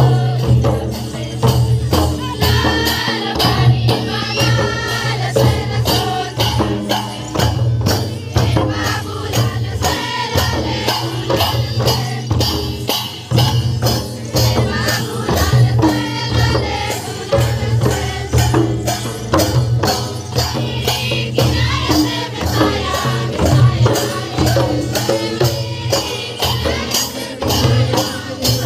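Several mandar drums, the two-headed barrel drums of Chhattisgarhi tribal dance, beaten in a fast steady rhythm of about two to three strokes a second, with a group of voices singing over the drumming.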